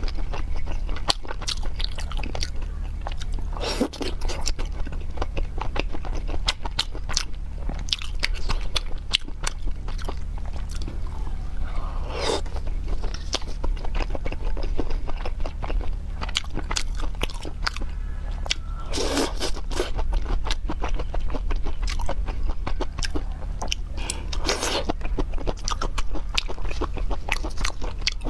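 Close-miked mouth sounds of a person biting and chewing skewered food coated in chili sauce: a steady run of crisp, wet crunches and clicks, with a few louder bites spaced through. A steady low hum sits beneath.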